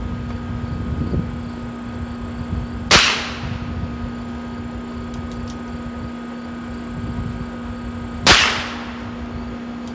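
Two shots from a single-action .22 rimfire revolver, a Heritage Rough Rider with a 6.5-inch barrel. Each is a sharp crack with a short tail, the second about five seconds after the first.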